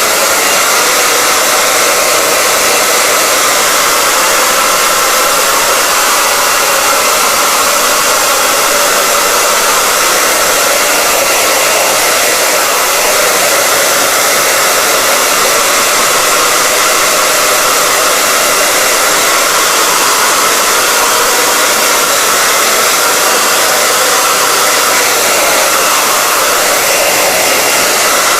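Hair dryer blowing steadily, an even rushing noise with a faint steady hum in it, as hair is dried after a shampoo wash.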